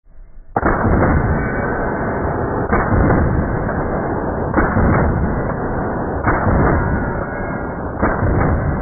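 Benelli Super Sport inertia-driven semi-automatic 12 gauge shotgun firing repeatedly, mostly in quick pairs of shots about a second and a half apart, sounding dull and muffled with a continuous rumble between the shots.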